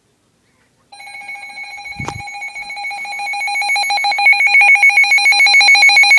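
Handheld weather radio's alert alarm for a severe thunderstorm warning: a rapid, pulsing electronic beeping that starts about a second in and grows steadily louder. A single thump sounds about two seconds in.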